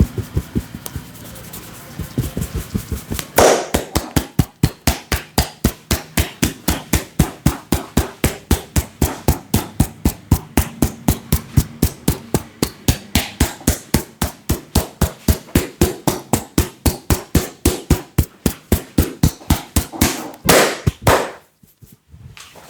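Percussive massage: a barber's hands striking in quick, even strokes at about four hits a second, with one louder hit near the end followed by a brief pause.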